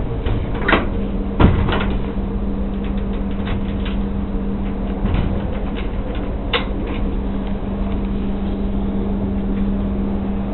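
A steady machine hum with a few sharp knocks and clicks, the loudest about a second and a half in.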